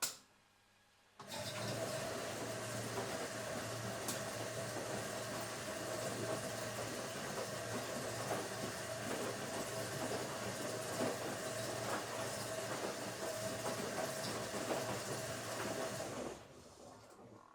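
Household automatic washing machine: a click, then about a second later the machine starts and runs with a steady hum and an even mechanical whir, stopping and dying away near the end.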